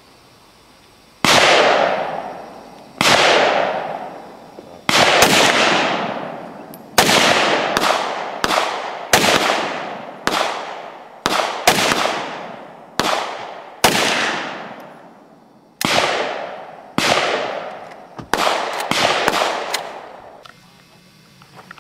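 AK-pattern rifle fired semi-automatically: about twenty single shots at an uneven pace, slow at first and quicker in the second half, each followed by a long echo. The last shot comes about a second before the end.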